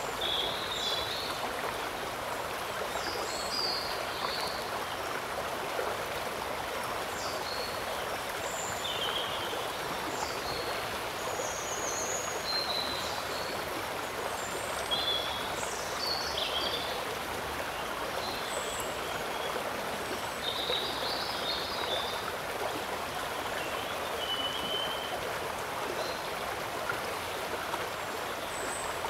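Shallow river water running and trickling steadily, with short high chirps scattered throughout.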